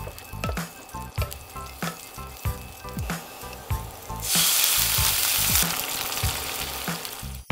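Garlic and scallions sizzling in hot oil in a frying pan, stirred with a wooden spatula. About four seconds in, wine poured into the hot pan makes the sizzle flare into a loud hiss for about a second and a half, then it settles back to a steady sizzle. Background music with a steady beat runs underneath.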